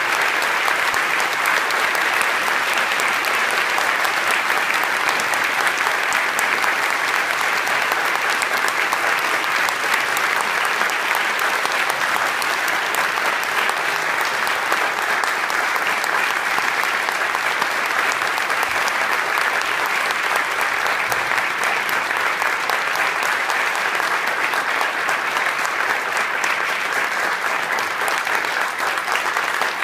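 Audience applauding steadily: a dense, even run of many hands clapping.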